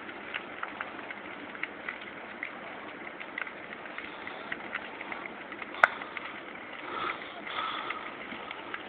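Large trailer fire burning: a steady rushing noise with irregular crackles and pops, and one sharp, loud pop about six seconds in.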